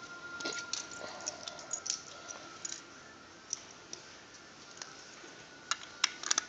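Plastic Lego bricks clicking and clattering as loose pieces are handled. Near the end comes a cluster of sharper, louder clicks as a brick is pressed onto the model.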